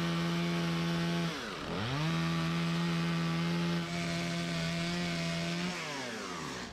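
Gas chainsaw at full throttle ripping along a milled wooden board. The engine note dips and climbs back about a second and a half in, then winds down near the end as the cut finishes.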